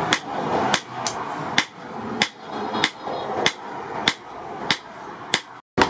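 Hand hammer striking a red-hot steel blade on a cylindrical post anvil, forging it with sharp metallic blows at about two a second. The sound drops out briefly near the end.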